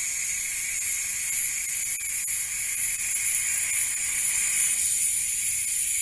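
Steady hiss of compressed air escaping from the shop air system, with no motor heard, easing slightly near the end.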